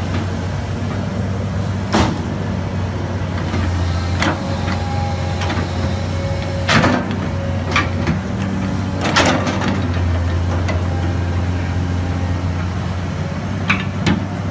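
Backhoe engine running steadily as its steel bucket rakes and levels a bed of crushed stone, with sharp clanks and scrapes of the bucket on the stone several times.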